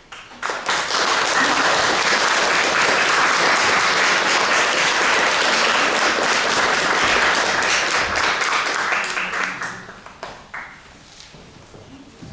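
Audience applauding, starting suddenly about half a second in and dying away after about nine seconds.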